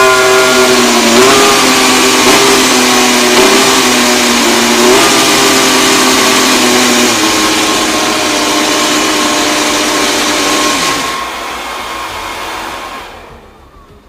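Mercedes W14 Formula 1 car's 1.6-litre turbocharged V6 hybrid power unit running during its first fire-up, its revs blipped up and back down a few times and then held steady. The sound falls away about eleven seconds in and dies out near the end.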